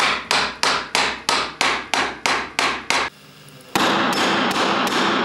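Fast, evenly spaced hammer blows, about three a second, which stop about three seconds in. After a short pause, a loud steady rushing noise starts just before four seconds in.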